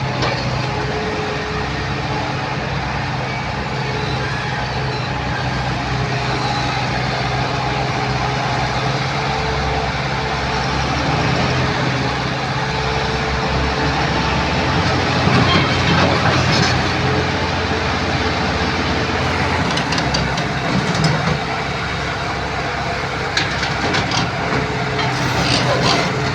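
Excavator's diesel engine running under work, its note shifting up and down, with a steady whine from the hydraulics. Several sharp clatters come in the second half.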